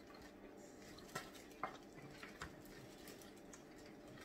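Faint handling sounds of seafood being picked apart over aluminium foil pans: crab shells and pan, with a few sharp clicks in the middle.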